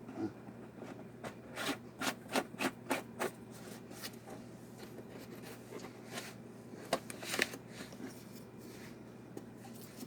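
Diesel heater parts and packaging being handled: rubbing, scraping and light knocks, a run of them in the first few seconds and a few more later, over a faint steady hum.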